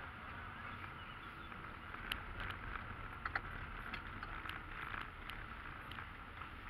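Car driving on a rough, patched mountain road, heard from inside the cabin: steady low road and engine rumble, with scattered light clicks and ticks from the uneven surface.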